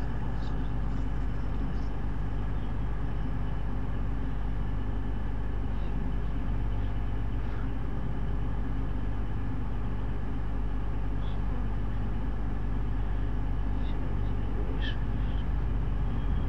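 Steady low diesel rumble with a hum, from a train engine in the distance, with no train yet passing close by.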